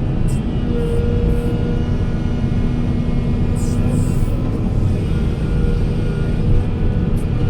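Engine of a heavy earthmoving machine running steadily under load: a dense low rumble with a steady hum, and a brief hiss about halfway through.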